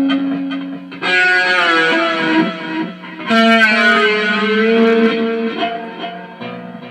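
Electric guitar played through effects: two chords struck, about a second in and again about three seconds in, with bending pitches, ringing out and fading near the end.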